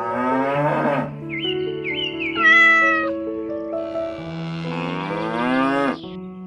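Cat meowing several times, with long rising animal calls, likely cow moos, near the start and again near the end, over steady background music.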